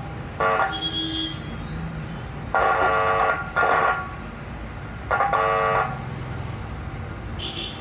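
Small power amplifier board buzzing through its test speaker in short bursts, about five horn-like tones of under a second each, as the USB input lead is plugged in: a sign that the lead is not properly connected. A steady low hum runs underneath.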